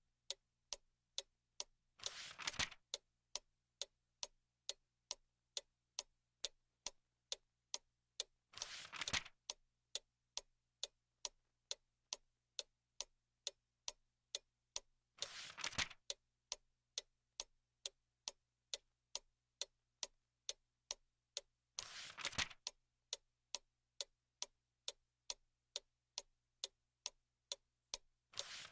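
A clock ticking steadily, about twice a second, with the page of a book being turned every six or seven seconds as a short papery rustle.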